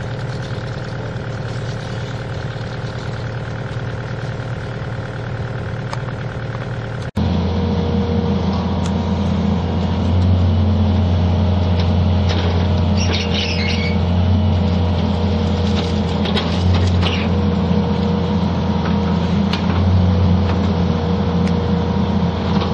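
Compact excavator's diesel engine running steadily, louder after about 7 seconds in, with dirt and rocks clattering down as its bucket dumps backfill into the hole around a meter vault.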